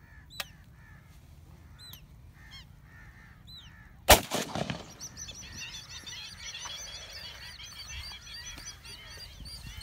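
A single shotgun shot about four seconds in, the loudest sound, after which a flock of waterbirds flushes and fills the rest with many overlapping high calls. Before the shot, bird calls repeat about once a second.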